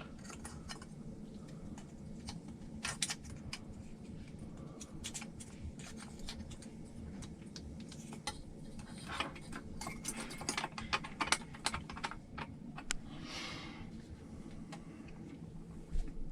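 Irregular light clicks and taps of small parts being handled and fitted by hand: the fan mount, top cover and screws of an RC car's ESC. The clicks come thicker about nine to twelve seconds in, with a short soft rustle about thirteen seconds in.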